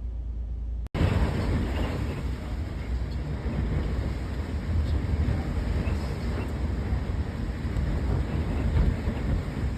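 Strong storm wind gusting against the microphone, a rumbling, buffeting roar that begins abruptly about a second in and rises and falls.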